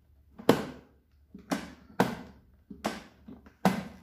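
Black+Decker air fryer's plastic basket drawer being tugged and knocking against its stop in a series of sharp clunks, about five loud ones with smaller knocks between, while tape still holds it shut.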